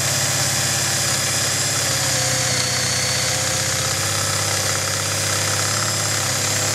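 Electric drill running steadily under load, its bit boring through a Chevrolet truck's steering column cover into the metal ignition lock housing to reach the lock bar that keeps the ignition cylinder from turning.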